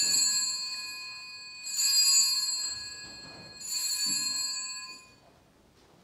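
Altar (sanctus) bells rung three times at communion, each shake a bright cluster of several bell tones that rings on and fades before the next. The three rings come at even intervals of just under two seconds.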